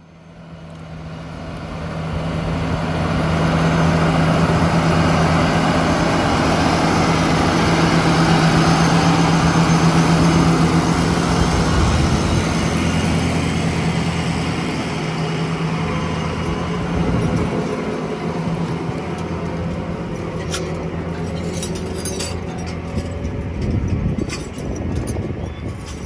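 John Deere tractor's diesel engine running steadily as it pulls a feed mixer wagon past at close range, growing louder over the first few seconds and easing off later. Light clicks and rattles come in near the end.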